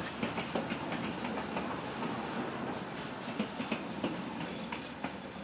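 Passenger carriages of a train rolling past, their wheels clicking over the rail joints in an irregular clickety-clack over a steady rumble, fading as the last carriage draws away.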